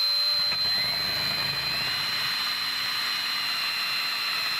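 Electric power drill running steadily as it bores out a drilled pilot hole in a 4L80e transmission valve body. Its whine dips slightly in pitch about two and a half seconds in and rises again near the end.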